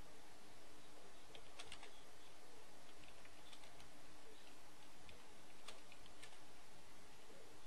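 Typing on a computer keyboard: faint, irregular key clicks over a steady low hiss.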